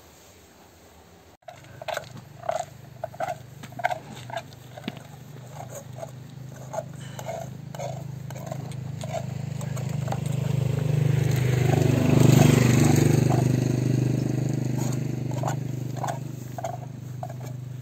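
A steady low engine hum that slowly grows louder, peaks about twelve seconds in, then fades, like a motor vehicle passing slowly. Light knocks come about twice a second in the first few seconds and again near the end.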